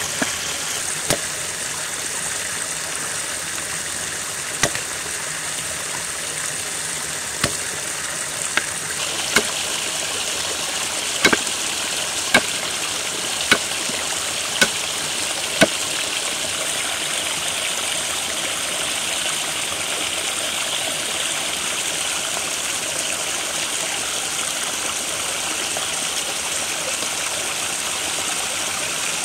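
A long knife striking a wooden stump chopping block as it slices cheese: sharp knocks, a few scattered at first, then about one a second for several seconds in the middle, then they stop. Under them runs the steady rush of flowing stream water.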